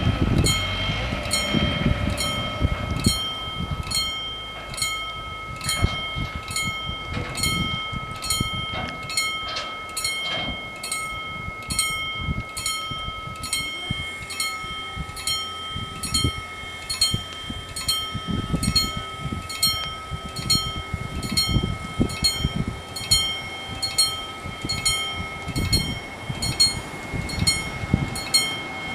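Warning bells of an Italian TD 96/2 automatic level crossing ringing in an even, rapid rhythm, a little under two strokes a second. From about halfway in until shortly before the end, a steady hum from the barrier drives joins them as the booms lower across the road.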